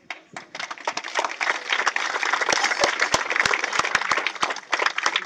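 Crowd applauding: dense clapping that swells over the first second and then holds steady.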